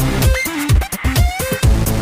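Electronic dance music with a steady beat, thumping bass drops and gliding synth tones.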